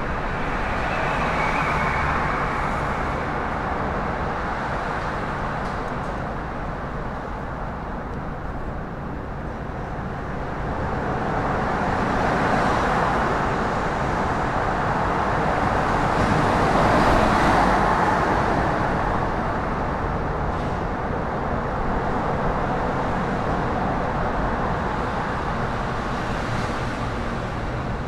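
Road traffic: a steady wash of passing vehicles that swells twice, about 12 and 17 seconds in, as traffic goes by.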